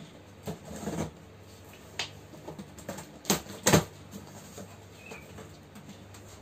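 Cardboard box being cut open and unpacked: scissors snipping the packing, then the top flaps rustled and pulled open, with two sharp snaps a little after three seconds in.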